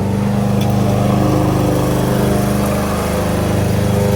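Kohler XT-675 single-cylinder lawnmower engine running steadily, its pitch dipping slightly about three seconds in.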